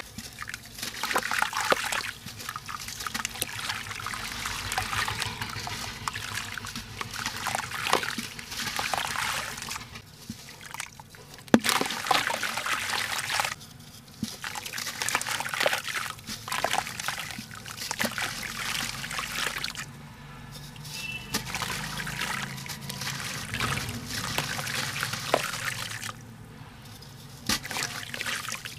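Wet sand-cement ball squeezed and crumbled by hand over a tub of water: gritty crackling as it breaks up, with grit and water trickling and splashing back into the tub. It comes on and off with short pauses, and there is one louder sharp crunch about a third of the way through.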